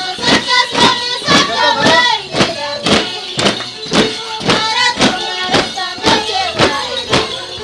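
Andean huaylia music played live: a high, gliding melody of singing or instruments over a steady beat of sharp strikes, about two a second.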